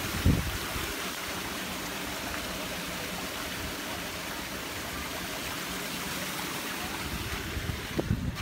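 Heavy rain mixed with hail falling on cars and pavement: a dense, steady hiss. A brief low thump comes just after the start.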